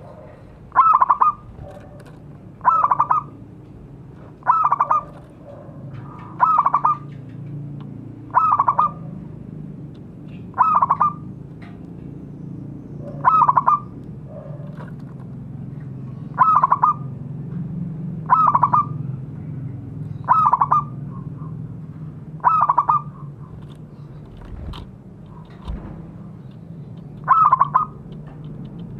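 Zebra dove (perkutut) calling: one short coo phrase repeated about every two seconds, a dozen times, with a longer pause near the end. A steady low hum runs underneath.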